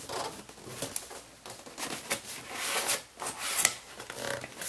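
A cardboard box being handled and its lid lifted open: scattered rustles and light taps and scrapes of cardboard.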